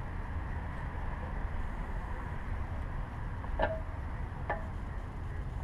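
Two short metallic clicks about a second apart, each with a brief ring, over a steady low rumble: tools or parts knocking against each other during engine work.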